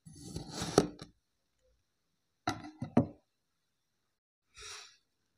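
Knife cutting through kinetic sand: a gritty crunch about a second long ending in a sharp click, then a shorter crunch with two sharp clicks about two and a half seconds in, and a brief soft scrape near the end.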